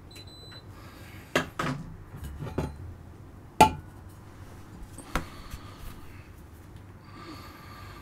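Handling noise from small objects: a handful of sharp knocks and clinks, the loudest about three and a half seconds in, with a brief high ring near the start.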